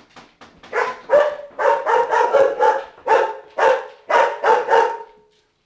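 Chihuahuas barking at other dogs: a string of about a dozen sharp, high-pitched barks, roughly two a second, that stops about five seconds in.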